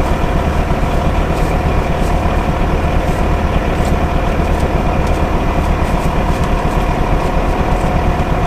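Heavy engine idling steadily, with a low, evenly pulsing rumble and a few faint ticks.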